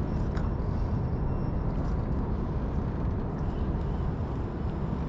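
Steady low outdoor background rumble, with a few faint clicks about half a second in and near the end.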